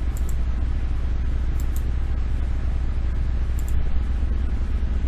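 Steady low electrical hum and hiss from the recording setup, with three short computer mouse clicks spread through it.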